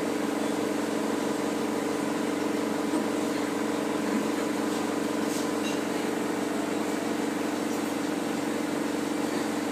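Steady mechanical hum of background machinery, holding several constant pitches, with a few faint clicks.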